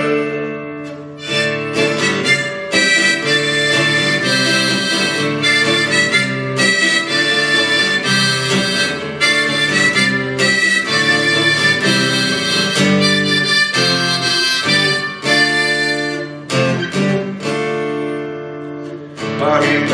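Instrumental break: harmonica playing a melody of held notes over strummed acoustic guitar.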